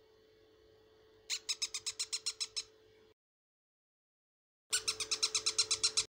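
Newly hatched parrot chicks begging: quick runs of high peeps, about eight to ten a second, in two bursts with a stretch of dead silence between them, over a faint steady hum.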